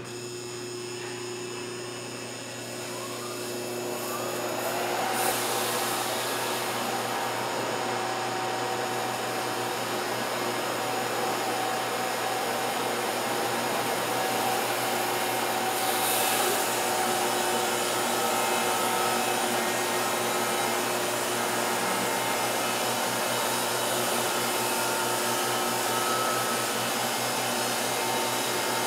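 Wood-Mizer LT50 band sawmill speeding up with a rising whine a few seconds in, then running steadily under load as it saws an oak log.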